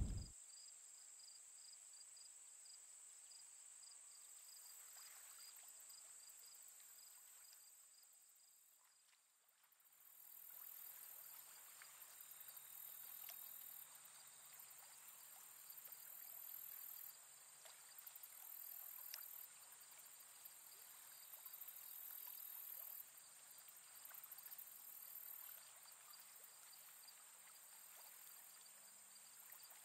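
Near silence: quiet outdoor ambience with a faint steady high-pitched whine and a faint rapid pulsing just below it, dipping briefly about nine seconds in, then scattered faint ticks.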